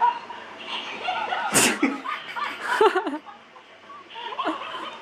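Electronic toy monkey sneezing once, a sharp burst about a second and a half in, followed by laughter.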